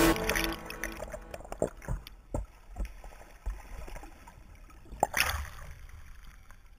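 Muffled underwater gurgling and scattered knocks heard through a submerged action camera's housing as a sea kayak capsizes, with one louder knock about five seconds in.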